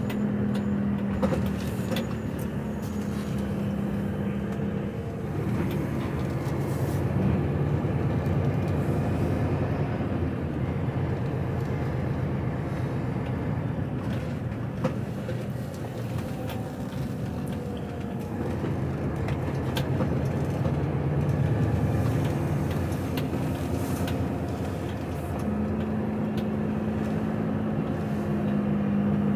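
HGV lorry's diesel engine running as it drives slowly, heard from inside the cab, with road noise. The engine note drops lower about five seconds in and rises again near the end.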